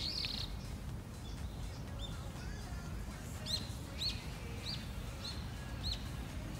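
A bird chirping repeatedly in short, high, quick notes, one right at the start and then about one every half second from about two seconds in, over a steady low rumble.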